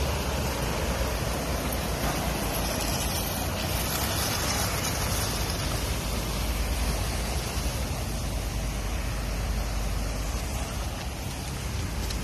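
Thunderstorm rain and wind: a steady rushing noise with a low rumble, swelling briefly a few seconds in.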